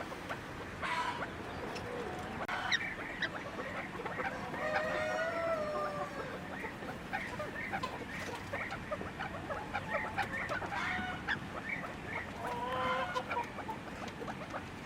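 A flock of chickens clucking and calling, with many short overlapping calls and one longer drawn-out call about five seconds in.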